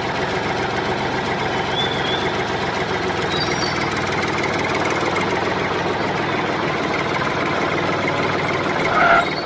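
Diesel engine of a small two-wheel walking tractor running steadily, with a few faint high chirps above it.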